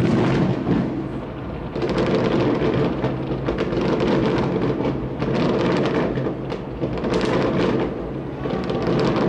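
Dense fireworks barrage: many aerial shells bursting in quick succession, making a continuous crackling and banging over a rumbling roll.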